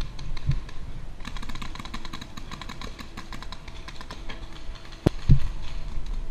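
Running footsteps on dry dirt and grass with gear and a paintball marker rattling, many small quick clicks throughout, and one sharp knock about five seconds in.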